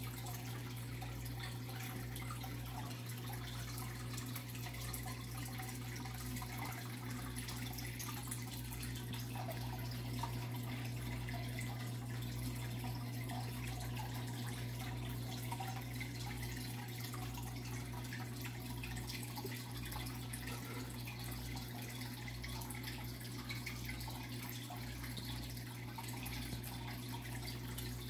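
Aquarium filter running: water trickling and splashing steadily into the tank over a low, steady hum.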